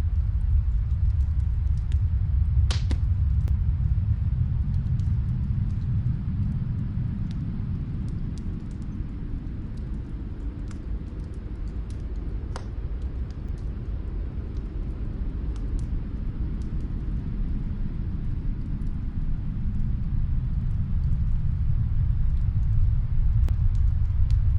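Snowstorm wind blowing as a deep rumble that eases off around the middle and builds again near the end. Faint, scattered fireplace crackles run through it, with two sharper pops, about three seconds in and about twelve seconds in.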